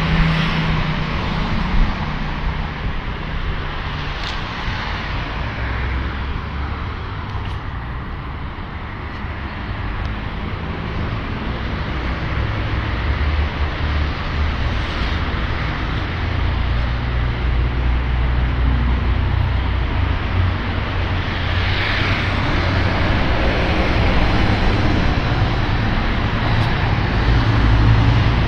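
City street traffic noise: a steady low rumble of passing cars and engines, getting louder over the second half.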